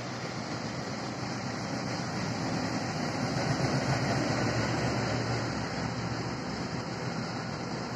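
Trains passing through a station: an ODOS Kocour class 742 diesel locomotive running as it tows a Laminátka electric locomotive along a far track, mixed with the rolling of a ČD regional train moving close by. A steady rumble of engine and wheels that swells slightly midway.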